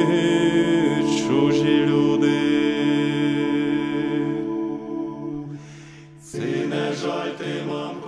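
Voices singing a slow Ukrainian folk song, holding a long note that fades away about five to six seconds in; the next line starts just after.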